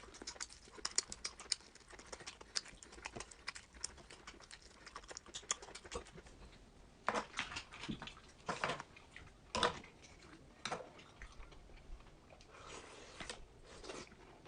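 Close-miked eating sounds: a quick run of small wet clicks of chewing, then a few louder, longer mouth sounds about seven to ten seconds in.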